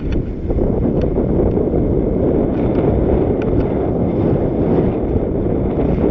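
Wind buffeting the microphone of a camera on a moving mountain bike, over the steady rumble of knobbly tyres rolling on a packed gravel trail, with a few sharp clicks.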